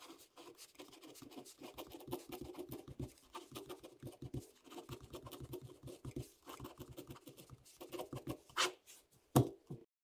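Pen writing on paper: a quick run of short scratching strokes, with two louder knocks near the end.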